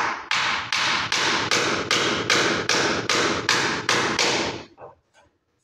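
A quick, even run of about fifteen nailing strikes, about three a second, fixing wooden wall moulding in place; the strikes stop near the end.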